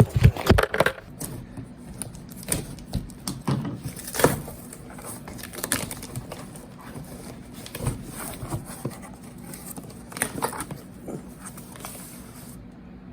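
Packaging being handled during an unboxing: scattered rustles, crinkles and light knocks. The loudest cluster comes in the first second, then single clicks every second or two.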